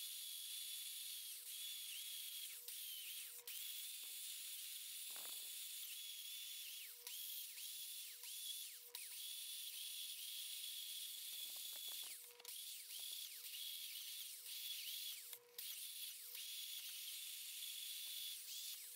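A small power tool running steadily, with a high hiss over a steady whine. A few brief clicks and dips break it.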